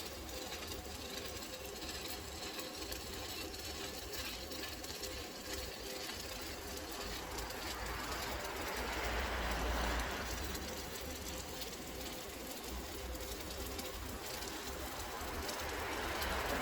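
Electric welding on a water heater: a steady crackling hiss with a low hum underneath, swelling louder twice, about eight seconds in and near the end.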